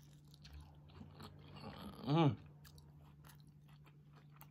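Chewing and biting into a battered fried chicken wing, with small crunches and wet mouth clicks. About two seconds in there is a short hummed voice sound.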